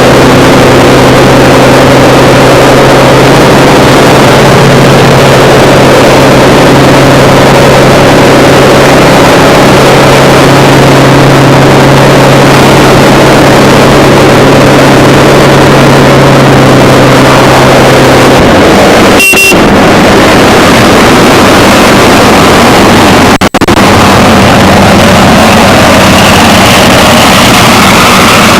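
Loud, steady drone of a racing aircraft's piston engine running on the ramp. The sound changes abruptly about two-thirds of the way through to a lower, different engine note, with a short dropout soon after.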